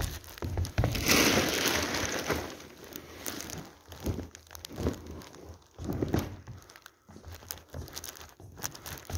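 Plastic bag being handled and crinkled, a loud dense rustle for about a second and a half near the start, then lighter intermittent rustling and handling noises.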